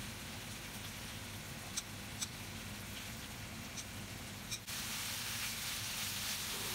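Gochujang-marinated pork belly sizzling in a frying pan: a steady hiss with a few light clicks from tongs and kitchen scissors. About two-thirds of the way through, the sizzle turns louder and brighter.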